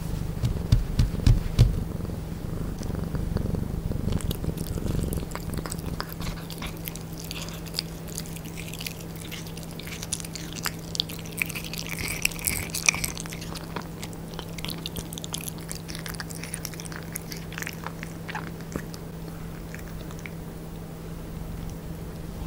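Devon Rex cat biting and chewing pieces of raw meat fed by hand, with many short wet smacks and clicks, busiest about halfway through. A low rumble with a few sharp thumps comes in the first couple of seconds.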